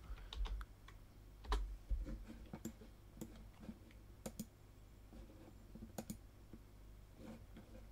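Irregular computer mouse clicks and keyboard key presses, short and fairly quiet, with one louder click about a second and a half in.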